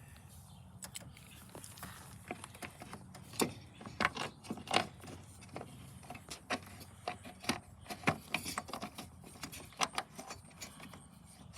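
Irregular small clicks and taps of hand work on a plastic headlight assembly as a mounting screw is fitted and started, a few louder clicks in the middle.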